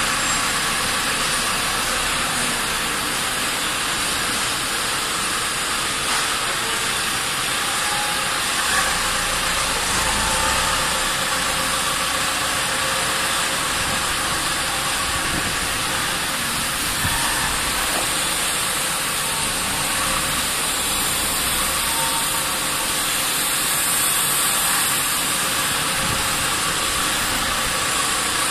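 Steady machine-shop noise: continuous machinery hum with an even hiss, unchanged throughout.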